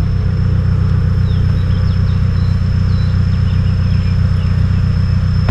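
Off-road vehicle's engine and drivetrain running steadily, a dense low rumble, with a thin, steady high-pitched tone above it.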